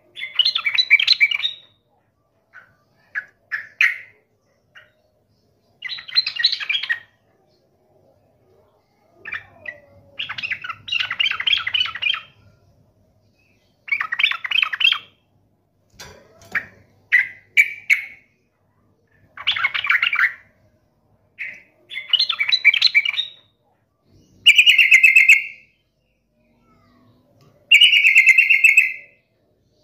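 Yellow-vented bulbul (trucuk) singing hard: short, fast, chattering song phrases of a second or two each, repeated with pauses between them. Near the end the phrases turn into smoother bubbling warbles.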